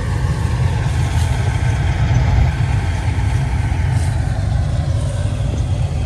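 Diesel farm tractor engine running steadily, heard from the driver's seat, a constant low rumble.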